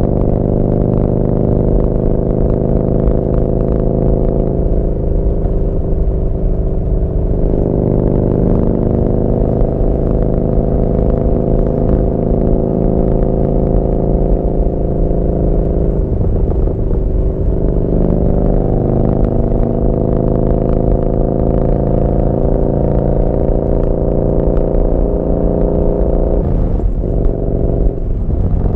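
Yamaha Bolt's air-cooled V-twin running through a Vance & Hines slip-on exhaust while riding. The exhaust note is loud and steady, and its pitch breaks and shifts briefly three times, about a fifth, halfway and near the end of the way through.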